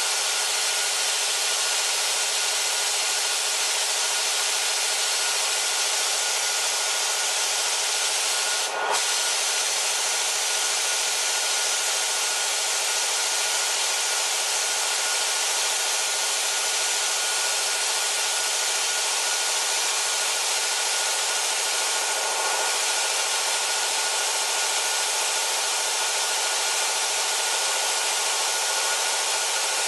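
Steady rush of compressed air streaming from a blow gun on the tank outlet while the three-cylinder PV3080 piston compressor, driven by a 5.5 kW motor, runs under load, with a momentary dip about nine seconds in.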